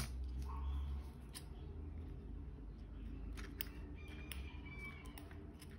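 Scissors closing on a ribbon, a few scattered sharp snips, over a low steady hum. The blades fail to cut through: the wrong scissors for the job.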